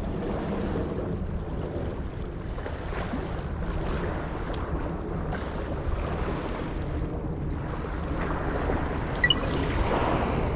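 Wind buffeting the microphone over the sound of sea water moving against the breakwater: a steady rushing noise with a low rumble. A few light clicks come about nine seconds in.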